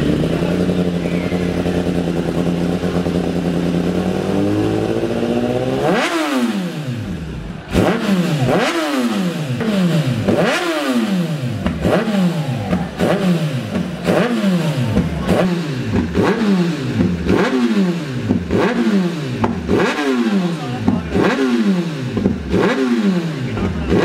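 Superbike engine idling steadily, then revved hard about five seconds in and blipped over and over, about once a second, each rev climbing sharply and dropping back.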